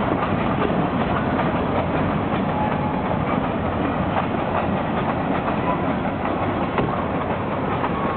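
Freight train cars rolling past with a steady rumble, steel wheels clicking over rail joints.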